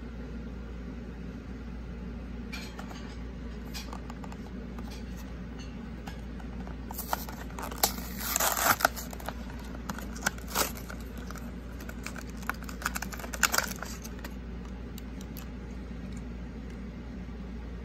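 Clear plastic blister pack being pried and torn off its cardboard backing card by hand, a string of crinkles, cracks and tearing sounds that are densest and loudest about eight seconds in and stop a few seconds before the end. A steady low hum runs underneath.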